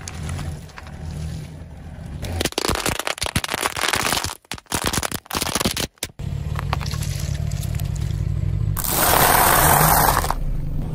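A car tyre rolling slowly over and crushing small objects, edited as a string of short clips: a dense run of sharp cracks and crackles, broken by two brief drops to silence at cuts, then a loud crunching burst about nine seconds in.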